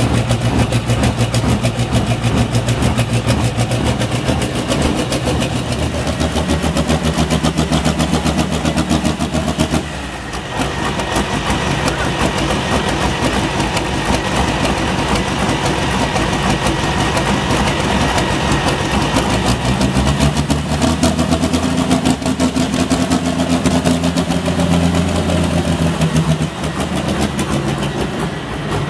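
Diesel tractor engine running loud and hard during a tractor pull. Its note steps up a few seconds in, dips briefly about ten seconds in, then shifts pitch again later.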